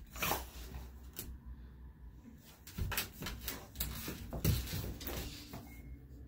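Scattered soft knocks and scuffs of a dog moving about and lying down on a tile floor.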